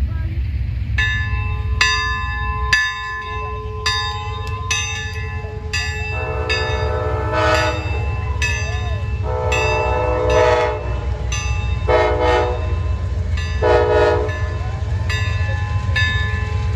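A large post-mounted bell rung by hand, struck roughly once a second, while a passing Amtrak diesel locomotive sounds its multi-chime horn in four blasts: long, long, short, long. Under it runs the steady low rumble of the train.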